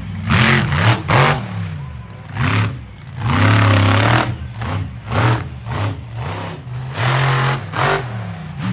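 Monster truck engine revving hard in repeated surges, the pitch climbing and dropping with each stab of the throttle, as the truck drives the dirt track and launches over a jump near the end.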